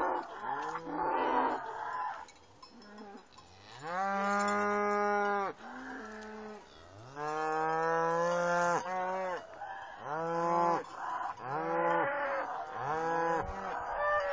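A herd of cattle mooing over and over, several long drawn-out moos and some shorter ones, one cow answering another with brief pauses between.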